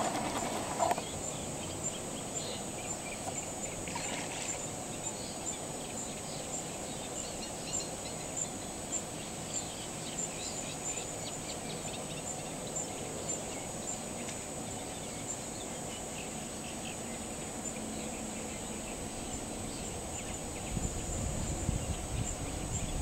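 Marsh ambience: a continuous chorus of distant animal calls under a steady high-pitched whine, with a low rumble near the end.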